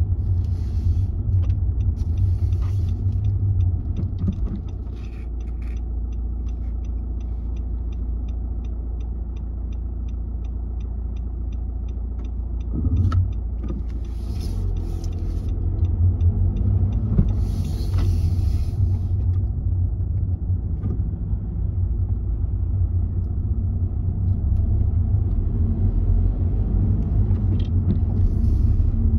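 Car interior road noise: a steady low rumble of engine and tyres while driving, with a turn indicator ticking evenly for about eight seconds in the first half.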